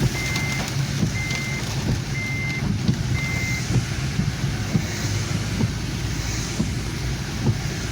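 Four short, evenly spaced high electronic beeps, about one a second, stopping a few seconds in, over the steady rumble of a car driving in rain.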